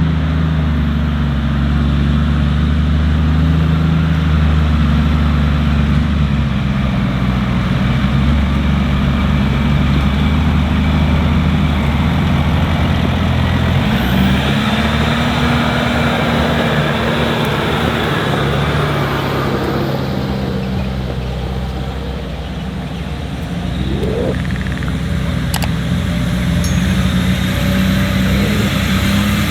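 Off-road 4x4's engine running steadily at low revs, with a slight dip in loudness about three quarters of the way through.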